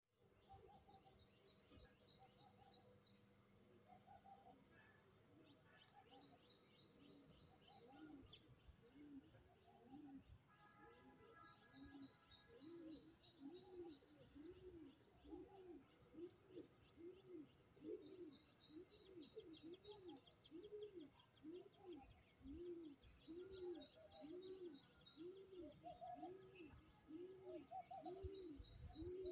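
Faint birdsong. A short, rapid, high trill repeats every five or six seconds, with scattered chirps. From about ten seconds in, a low cooing note repeats steadily, a little over once a second.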